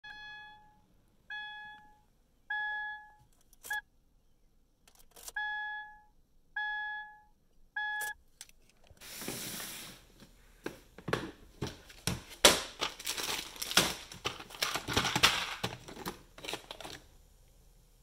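Subaru's key-in-ignition warning chime beeping over and over, about once every second and a quarter, with a few sharp clicks among the beeps; it stops after about eight seconds. Then a plastic storage bin is handled, with a burst of rustling followed by many clicks and knocks as parts are rummaged.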